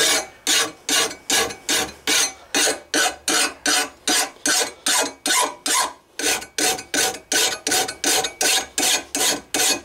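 Hand file rasping across the edge of a steel lawnmower blade held in a bench vise, sharpening it. The strokes are quick and even, nearly three a second, with a brief break about six seconds in.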